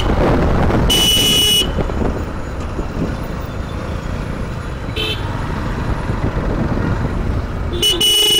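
Motorcycle riding through congested city traffic: a steady engine and road rumble, cut by vehicle horn honks, a long honk about a second in, a short beep around five seconds, and another honk near the end.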